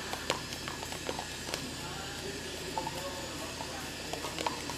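A dog licking out a small plastic yogurt cup held in a hand: irregular wet licking clicks and ticks over a steady background hiss.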